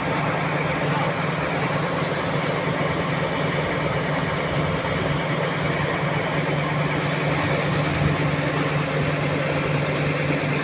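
A crane's engine running steadily with a constant low hum.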